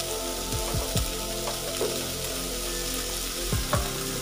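Beef short ribs sizzling as they brown in a double grill pan, with a few sharp knocks of a spatula against the pan, over background music with held notes.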